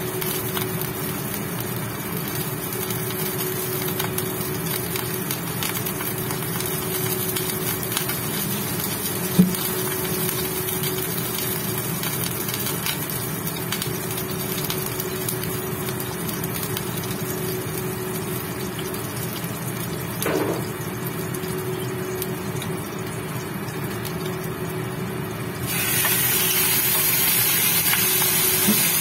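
Induction cooktop humming steadily with one constant tone while oil and ginger heat in the wok. About 26 s in, a loud sizzle starts suddenly as raw chicken pieces go into the hot oil.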